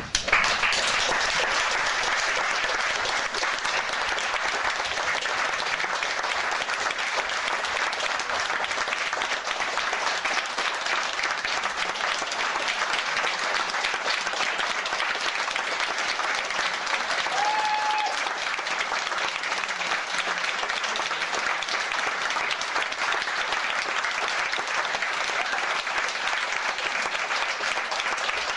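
Theatre audience applauding at the curtain call, the clapping breaking out suddenly at the end of the performance and then holding steady.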